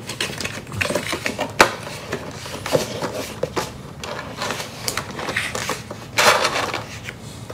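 Cardboard phone box being opened by hand: the printed card sleeve scraping and rustling as it slides off the inner tray, with scattered light taps and clicks. There is a sharp click about a second and a half in and a longer scraping rustle near the end.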